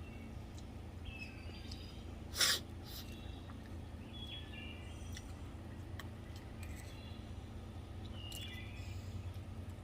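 Birds chirping in short, stepped, falling phrases that recur every few seconds over a steady low hum. A brief, loud noisy burst comes about two and a half seconds in.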